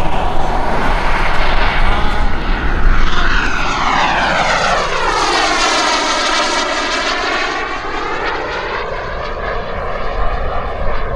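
Turbine engine of a BVM Renegade model jet, an EvoJet 220, running in flight as the jet passes by. It is a steady jet rush with a phasing tone that sweeps down and then back up during the pass, loudest about three seconds in.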